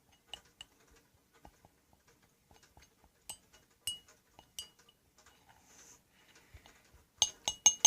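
Metal spoon clinking against a container while stirring a shampoo-and-cornstarch slime mix: scattered light clinks, then a quick run of about six louder clinks near the end.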